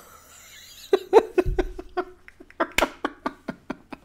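A man laughing in a quick run of short, breathy bursts.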